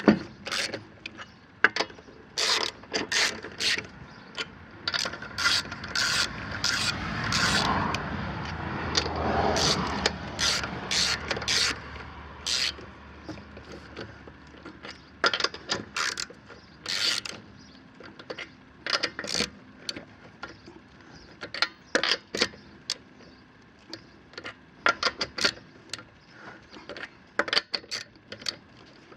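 Lug nuts being threaded and run down onto a car wheel's studs by hand: irregular sharp metallic clicks and clinks, with a longer rasping stretch about a third of the way through.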